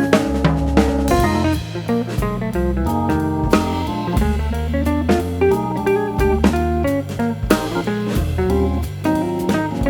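Background music: guitar-led band music with bass and a drum kit keeping a steady beat.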